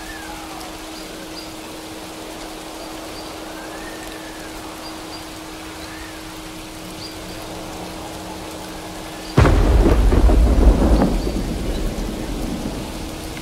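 Steady rain with a single thunderclap breaking in sharply about nine seconds in, then rumbling and fading away over a few seconds. A steady low tone and faint gliding tones run underneath the rain.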